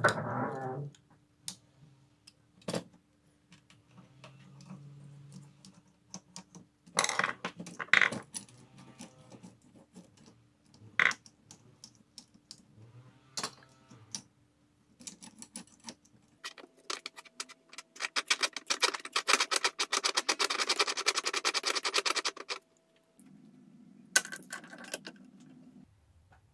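Small metal parts clicking and clattering as screws, nuts and a screwdriver are worked on a homemade steel vise jaw, with a fast run of rattling clicks lasting several seconds past the middle.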